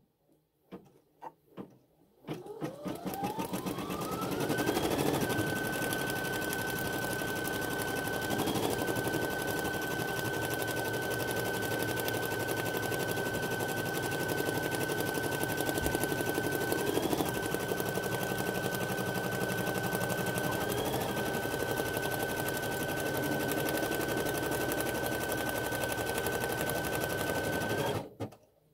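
Baby Lock embroidery machine stitching a placement line: a few light clicks, then its motor spins up with a rising whine, runs steadily with the needle's rapid rattle, and stops abruptly near the end.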